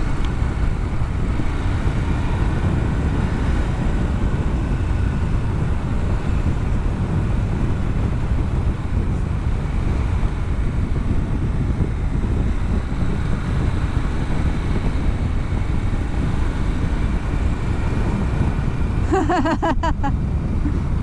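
Motorcycle engine running at a steady cruise under heavy wind rush on the on-board microphone. Near the end comes a short run of rapid pitched pulses.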